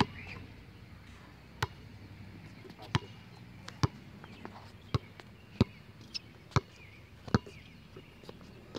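Basketball being dribbled on a hard outdoor court: a series of sharp bounces at an uneven pace, roughly one a second.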